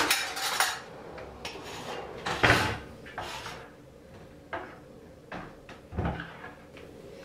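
Knocks and clatters of plastic kitchenware: a plastic sieve knocked against a plastic bowl and set down in a steel sink, then a spatula scraping around the bowl. The loudest knock comes about two and a half seconds in.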